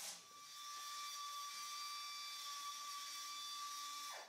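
Compressed-air blow gun blowing: a steady whistling hiss that drops in pitch and cuts off near the end.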